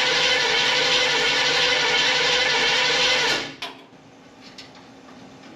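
Starter motor cranking a 305 small-block Chevy V8 steadily, then cut off sharply about three and a half seconds in. There is no fuel in the system, so the engine turns over without firing.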